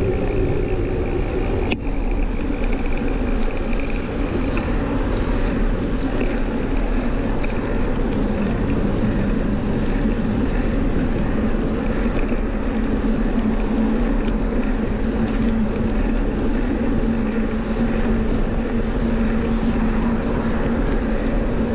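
Steady rush of wind and rolling noise on a moving action camera's microphone, with a low hum that strengthens in the second half and a single click about two seconds in.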